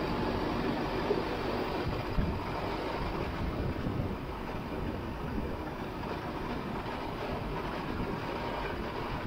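Valtra C120 tractor running under way across a field pulling a slurry tanker: a steady engine and drivetrain noise with the rattle of the rig, and a couple of sharp knocks about one and two seconds in.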